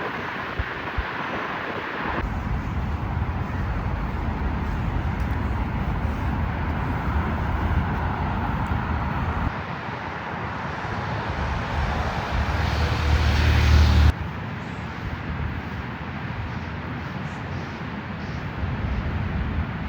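Outdoor background noise: a steady low rumble with hiss, changing abruptly at a few cuts. The rumble swells to its loudest just before a sudden drop about fourteen seconds in.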